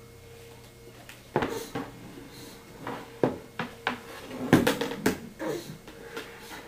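Hollow plastic basket knocking and scraping on a wooden table top: a run of irregular clunks and bumps, the loudest a little past halfway.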